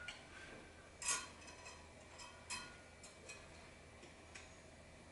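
Faint clicks and taps of a screw and the generator's airbox being handled while the back airbox screw is fitted by hand, with two sharper clicks about one and two and a half seconds in.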